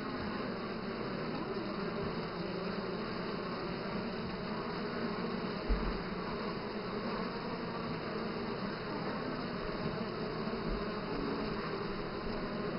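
A package of Italian honey bees in a screened transport box humming steadily, the whole cluster buzzing together as one even drone. A brief soft low bump comes about six seconds in.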